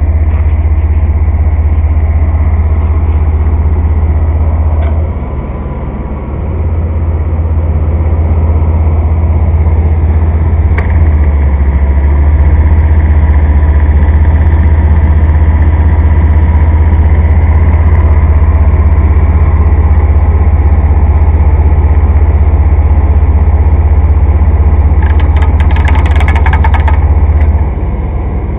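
2000 Chevy Blazer's 4.3-litre Vortec V6 running cold with its engine-driven clutch fan spinning: a loud, steady low rumble of engine and fan. There is a short dip in level about five seconds in and a brief clatter of clicks near the end.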